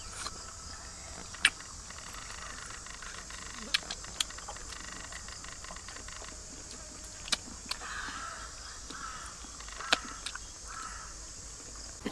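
Two people chewing grilled squid, with a few sharp clicks of lip-smacking and chewing over a steady high hiss.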